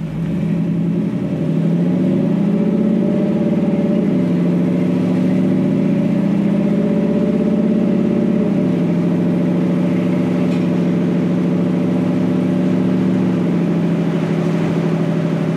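1956 Ford pickup truck's engine pulling away and accelerating through an automatic transmission. The revs climb and drop at an upshift about four seconds in and again about eight seconds in, then hold fairly steady at cruising speed.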